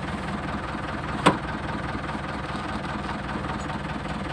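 Six-wheeler mini dump truck engine idling steadily once warmed up, heard from the cab. A single sharp click about a second in.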